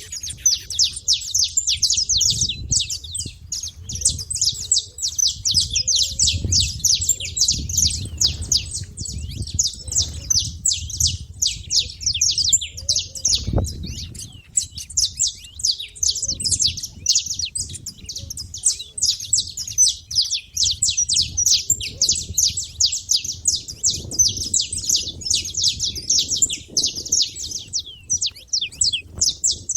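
Saffron finches chirping: a dense, unbroken stream of rapid, high-pitched chirps.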